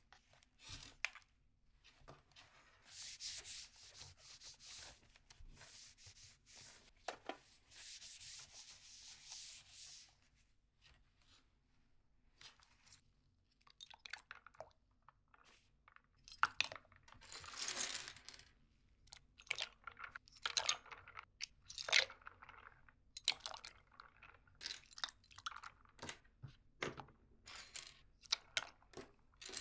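Keyboard cleaning: a stretch of scratchy scrubbing and rubbing, then many short clicks and clatters of hard plastic keycaps and keyboard parts being handled.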